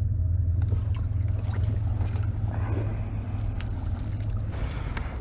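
Water sloshing and light metal clinks as a collapsible wire fish basket is lifted out of a boat's livewell, over a steady low rumble.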